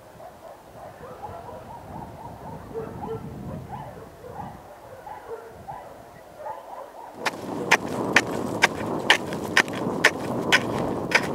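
A steel ice chisel striking a frozen lake surface, sharp chopping blows about two a second with a rasp of ice chips between them, starting about seven seconds in. Before it, only faint distant animal calls.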